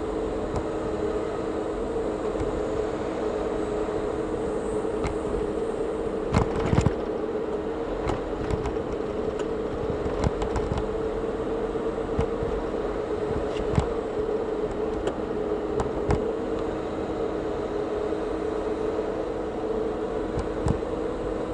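Steady drone of a car driving, heard inside the cabin, with a constant low hum. Short sharp clicks and knocks come now and then, the loudest pair about six and a half seconds in.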